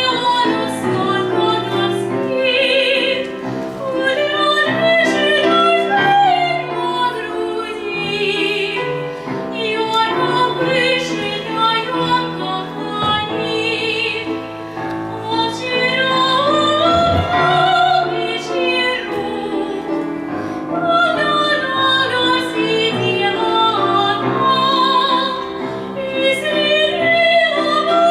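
Operatic solo singing with a wide vibrato on long held notes, over instrumental accompaniment.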